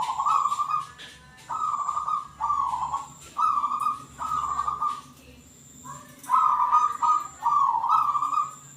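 Zebra dove (perkutut) cooing: a run of short rolling, trilled coos, each under a second, repeated in quick succession with one brief pause about five seconds in.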